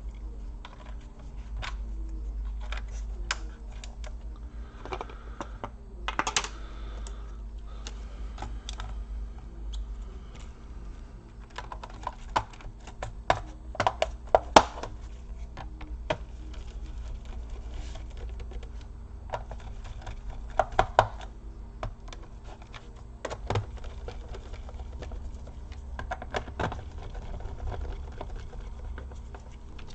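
Irregular small clicks and taps of plastic and metal laptop parts being handled and screws driven with a hand screwdriver during reassembly, with a few louder clusters of clicks, over a steady low hum.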